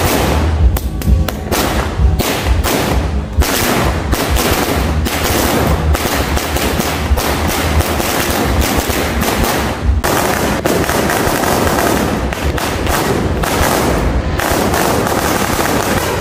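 A string of firecrackers going off in a rapid barrage of loud bangs, run together almost without a break, with only a few brief lulls.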